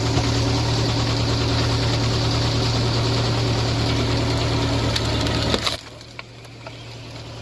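Wood chipper running under load, its engine holding a steady low tone under a dense crackling hiss of wood being shredded. It cuts off abruptly about five and a half seconds in, leaving a much quieter engine hum.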